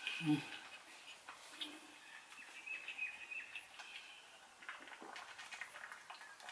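Quiet eating sounds: soft chewing and small mouth clicks, with faint high chirps in the background.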